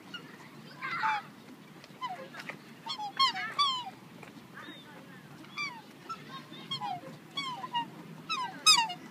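Black swans calling: a string of short, high notes that slide downward in pitch, often in twos and threes, with the loudest call near the end.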